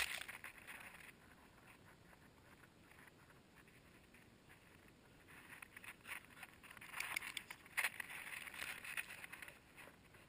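Dogs' paws scrabbling and scuffing through snow right at the camera, with snow sprayed against it: a short burst at the start, then a longer stretch of crunching and scuffling from about five to nine and a half seconds in.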